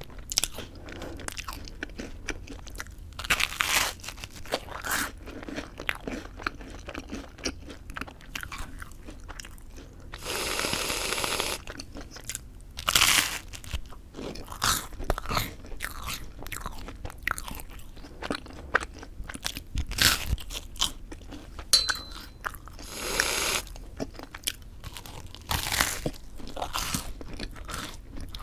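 Close-up bites into crisp toasted white bread with whipped cream, crunching loudly, followed by chewing. Two short stretches of steady hiss break in, one of about a second and a half around ten seconds in and a shorter one near the end.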